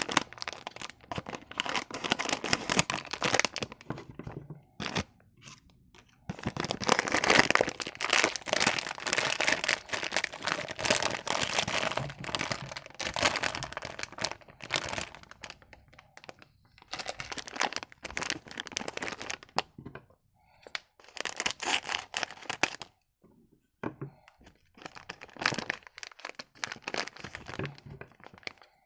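Candy wrappers crinkling and tearing as sweets are unwrapped, in dense crackling stretches broken by short pauses.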